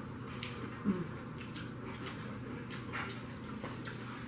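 Close-up eating sounds: chewing, wet mouth smacks and scattered short crunches of Doritos tortilla chips and fried chicken, with a brief hummed vocal sound about a second in.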